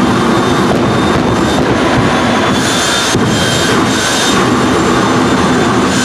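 Jet engines of two jet-powered funny cars running loudly at the start line, the high whistle of the turbines shifting several times as the throttles are blipped and the afterburner fires.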